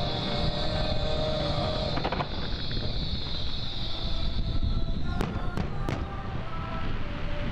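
Fireworks: a steady hiss, then three sharp bangs in quick succession about five seconds in as shells burst into stars.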